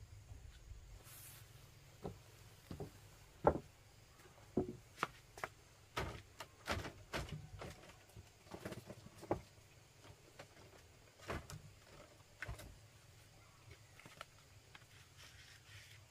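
A string of irregular knocks and clacks, like hard objects being handled, bunched mostly through the middle stretch, with one sharper knock a few seconds in.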